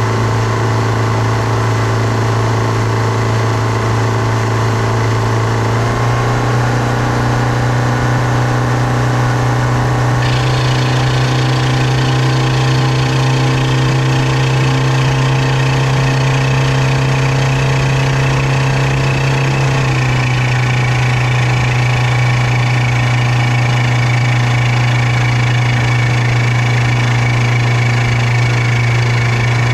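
New outboard motor running during its break-in, steady but changing speed in steps: up about six seconds in and back down around twenty seconds in, with a harsher hissy edge coming in about ten seconds in.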